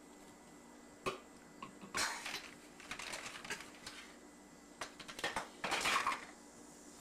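Toy dishes and play food being handled, knocking and clattering several times in short irregular bursts.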